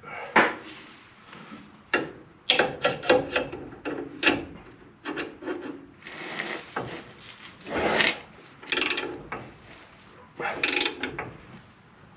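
A ball joint press being fitted to the lower ball joint of a 1966 Chevy C10 and its screw turned by hand with a ratchet: irregular metal clinks, scrapes and short runs of ratchet clicks, coming in clusters.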